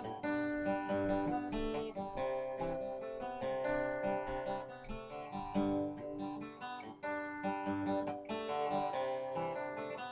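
Hohner HW600 acoustic guitar, fitted with new D'Addario strings, strummed through a chord pattern, the chords ringing between repeated strokes.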